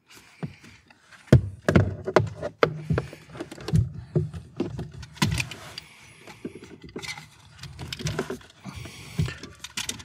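Irregular clicks, knocks and light rattles of a steering wheel lock being handled and hooked onto a car's steering wheel, its metal hook and lock body knocking against the wheel and each other. The sharpest knock comes about a second and a half in.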